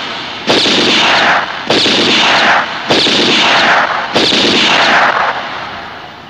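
Dubbed film-style gunshot sound effects: four loud shots a little over a second apart, each with a long echoing tail, dying away near the end.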